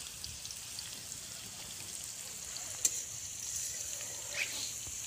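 Green spice paste frying in hot oil in a metal kadai, a steady sizzle as it is stirred, with a sharp pop about three seconds in.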